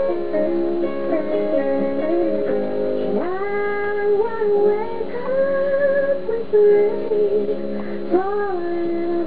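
Background music: a song with guitar and a sung melody that slides in pitch.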